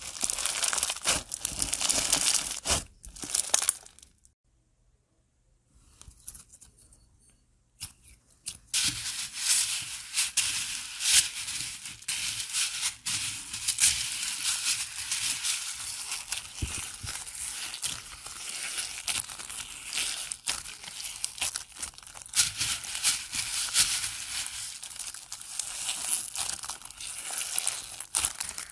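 Foam-bead slime (floam) squeezed and stretched in the hands, a dense crackling. After about four seconds of near silence, from about eight seconds in, a hand presses and stirs loose foam beads in a bowl and kneads slime through them: a steady rustling crackle with many small pops.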